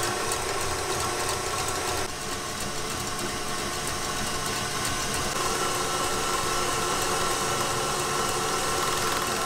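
KitchenAid Artisan stand mixer running steadily, its wire whip beating egg whites into meringue in a stainless steel bowl, with a brief dip in level about two seconds in.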